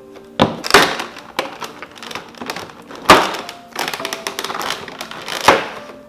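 Clear plastic blister packaging crackling and crunching as it is pried apart and lifted by hand, in several sharp bursts, the loudest about three seconds in. Soft background music runs underneath.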